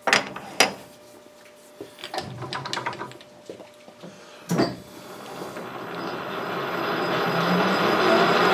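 Metal clicks and clunks as a tool holder is set onto the lathe's tool post. From about five seconds in, the metal lathe starts, and its four-jaw chuck spins up, the running noise growing steadily louder.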